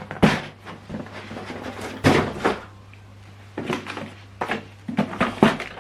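Scattered knocks, thunks and clicks as unboxed printer parts and packaging are handled and set down, with a faint low hum underneath.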